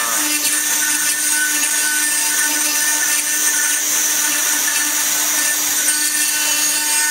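Stone CNC router's spindle and cutter grinding into a rotating stone workpiece under a water-spray coolant: a steady high whine over a constant hiss.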